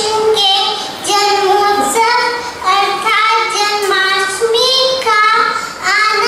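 A young girl singing solo into a handheld microphone, holding long, steady notes in short phrases of about a second each, with brief breaths between.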